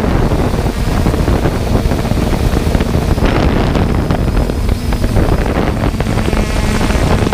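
Drone's motors and propellers running steadily, heard through wind rushing over its onboard camera microphone, with a faint low hum under the rush.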